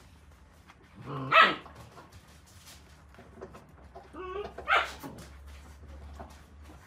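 Akita puppy crying out while nursing: a short yelp with falling pitch about a second in, then a wavering whine that rises into a second, louder yelp near five seconds.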